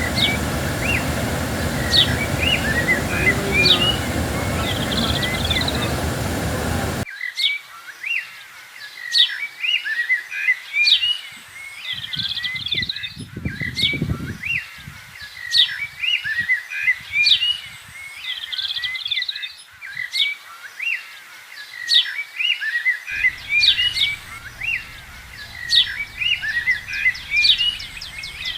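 Small songbirds chirping and singing, repeating a short phrase every second or two: a sharp high note, lower twitters and a brief buzzy trill. For about the first seven seconds a steady rushing noise lies under them, then it cuts off suddenly.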